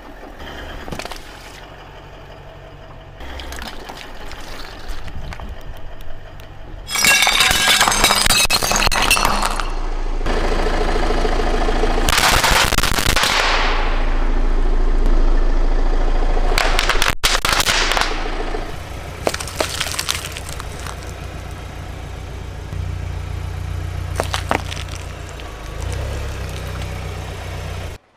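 A car tyre rolling over and crushing a series of small objects on pavement: bursts of crunching and cracking, loudest about a quarter and a half of the way through, over a low steady hum.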